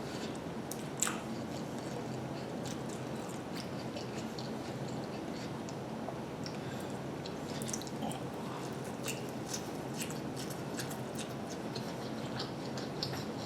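A person chewing lo mein noodles: soft, wet mouth clicks and smacks over a steady low hiss, with one sharper click about a second in.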